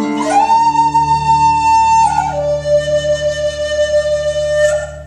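Native American flute holding one long note, then stepping down about two seconds in to a lower note held until near the end, over a steady low drone. These are the closing notes of the piece.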